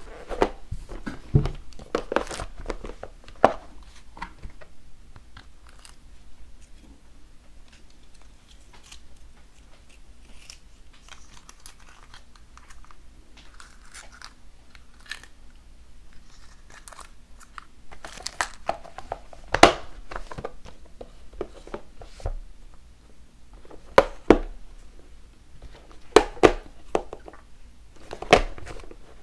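Clear plastic compartment boxes of nail-foil rolls being handled: scattered plastic clicks, knocks and rattles. They come in clusters about two seconds in and again several times over the last ten seconds, with quieter handling noise between.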